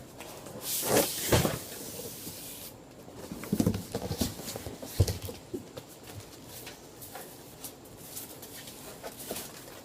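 Cardboard packaging being handled and opened: a long rustle in the first few seconds, then scattered knocks and clicks.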